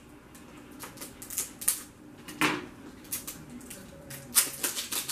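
Small plastic blind-bag toy capsule ball handled and opened by hand: irregular plastic clicks and crinkling, with a sharper snap about halfway and the loudest click near the end.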